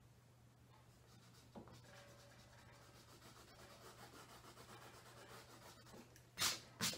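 Pencil sketching lines on a stretched canvas: faint scratchy rubbing strokes, with two louder, brief rubbing swishes near the end as the hand sweeps across the canvas.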